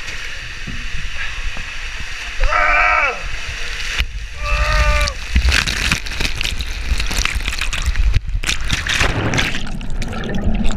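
Water rushing and rumbling under a rider sliding down an enclosed tube water slide, with two short yells from the rider early on. In the second half it breaks into heavy splashing and spray as he shoots out and plunges into the pool.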